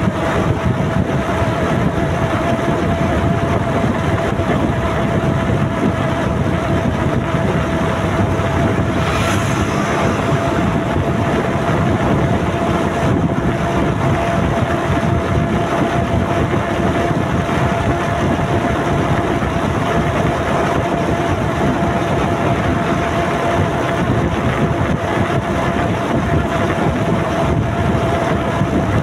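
Motorcycle riding at a steady cruising speed, heard from the bike itself: wind rushing over the microphone over the steady drone of the engine, with a steady high hum running through it. About nine seconds in, a brief swell of hiss rises over the wind.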